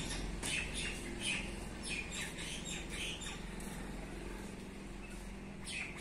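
Small birds chirping: a quick run of short high chirps in the first few seconds and another chirp near the end, over a low steady background hum.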